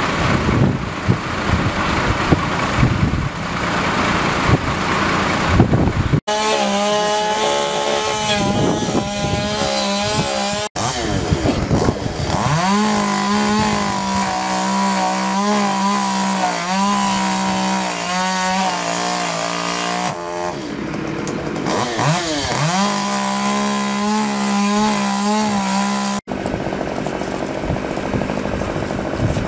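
Chainsaw revving up and held at high speed, in several edited stretches, with the engine's pitch climbing quickly each time it is throttled up. The opening seconds hold rough outdoor noise instead.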